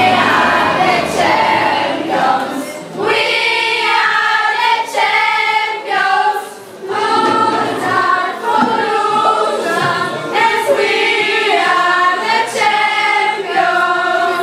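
A group of girls singing together without instruments.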